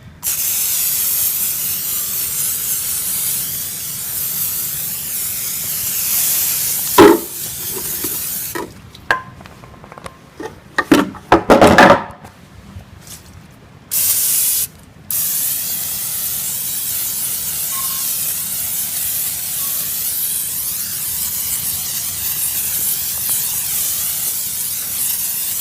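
Aerosol can of cooking-oil spray hissing in long bursts as it coats a snow shovel, with a few knocks and some clatter between bursts about halfway through.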